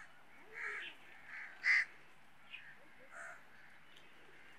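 Crows cawing: several short, scattered caws, the loudest a little under two seconds in.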